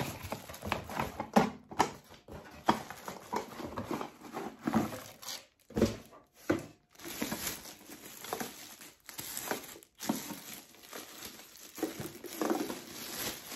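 Clear plastic bag crinkling and rustling as an electric wax warmer is pulled out of it by hand, in irregular bursts with brief pauses.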